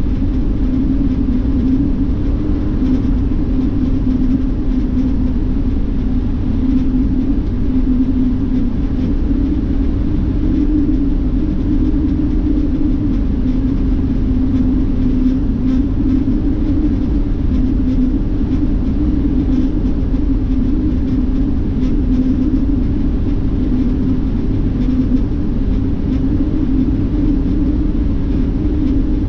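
Steady drone of a highway coach bus cruising, heard inside from the front seat: engine and tyre rumble with a strong low hum.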